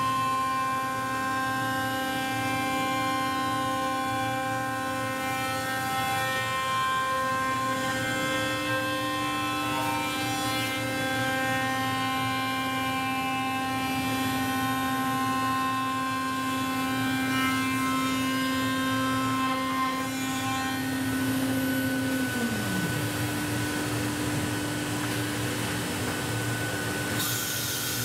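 CNC machining centre's router spindle running at high speed with a steady multi-tone whine while machining a laminated MDF blank. About 22 seconds in, one tone slides down as a spindle winds down while the other keeps running, and a short hiss of air comes near the end.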